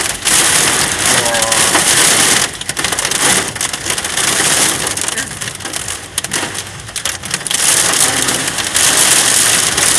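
Torrential storm rain lashing the roof and windscreen of a car, heard from inside the car as a loud, dense roar. It swells and dips with the gusts, eases for a couple of seconds past the middle and builds again near the end.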